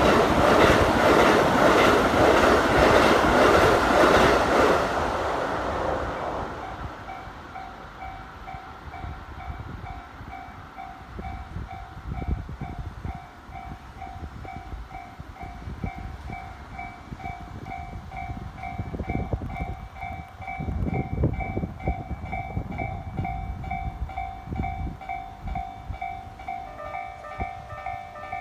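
An electric commuter train passes close by with loud wheel and rail noise that fades away after about six seconds. A level-crossing warning bell then keeps dinging at an even pace, and near the end a second, differently pitched crossing bell joins in.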